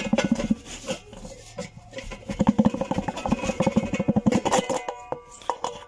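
Maytag washing machine transmission being rocked back and forth and pulled up out of its mounting, giving a fast, irregular rattling and knocking. It is loudest at the start and again from about two to four and a half seconds in, then dies down near the end.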